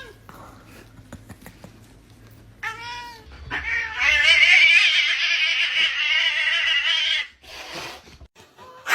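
A cat meows briefly, then lets out a long, loud, wavering yowl lasting about four seconds.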